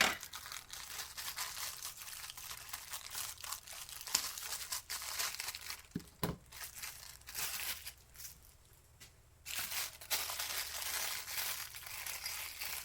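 Plastic packaging crinkling and rustling as it is handled, in irregular stretches, with a couple of sharp clicks about six seconds in.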